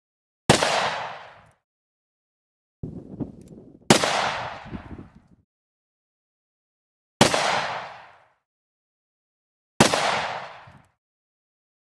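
Four single gunshots about three seconds apart, each a sharp crack with a reverberant tail that dies away in about a second. A quieter, rougher noise comes about a second before the second shot.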